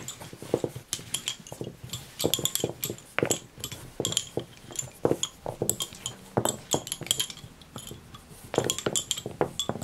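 Bobbin-lace bobbins clicking and clinking against one another as they are handled, an irregular run of light, sharp knocks, several in quick clusters.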